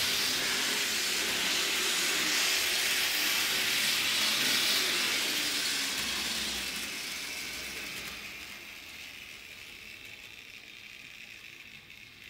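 Bachmann HO-scale John Bull model locomotive and cars running around the track, a steady hissing whir from its small electric motor and wheels on the rails, fading away over the second half.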